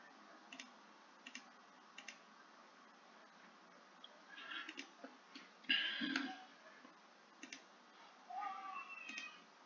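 Computer mouse clicking, about six single sharp clicks spread a second or more apart, each adding a waypoint to a route drawn on a digital map. A few short faint noises fall between them, the loudest about six seconds in.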